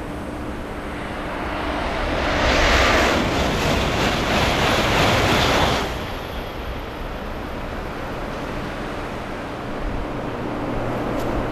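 Shinkansen 700 series Railstar train passing through the station at speed on the through track: a rushing noise that swells, stays loud for about three seconds and ends abruptly about six seconds in. A steady, quieter station background follows.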